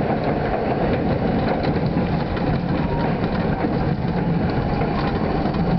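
R42 subway train running along an elevated line, heard from inside the front car: a steady rumble of wheels on rail and running gear.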